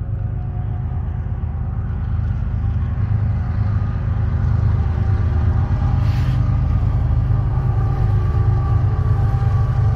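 Freight train's diesel locomotives passing close by: a deep, steady engine rumble with a few held tones above it, growing louder as the train draws near, and a short hiss about six seconds in.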